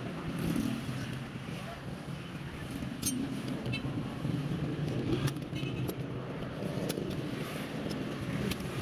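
Steady street traffic and rumble, with a few sharp light metal clicks scattered through it as staples are worked out of a motorcycle seat's plastic base.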